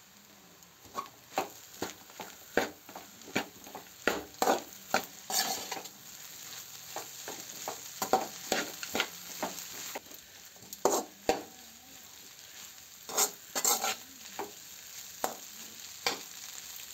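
Slotted metal spatula scraping and stirring fried rice in an aluminium kadai, in quick irregular strokes, over a faint sizzle of frying.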